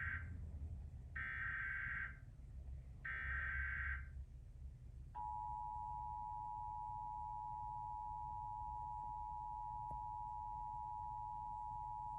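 Emergency Alert System SAME header: screeching data bursts about a second long each, with the first already under way and two more following. About five seconds in, the EAS attention signal begins, a steady two-tone beep at 853 and 960 Hz, opening a statewide required monthly test.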